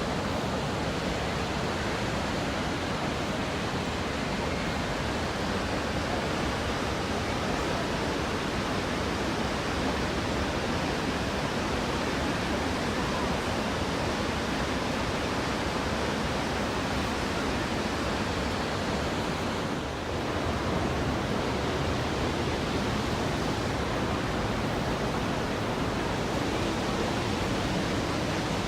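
Rhine Falls waterfall: a dense, steady rush of heavy water pouring over the falls close by, with one brief dip in level about two-thirds of the way through.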